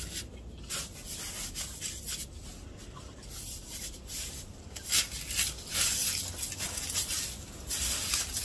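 A dog pushing and rubbing its head and body through a patch of snow, making irregular scraping, crunching strokes.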